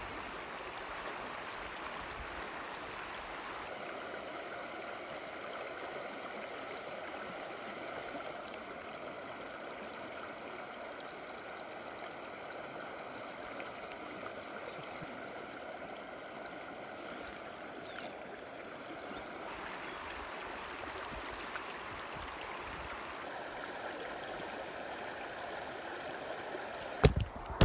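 Creek water rushing and gurgling steadily. Two sharp knocks come close together near the end.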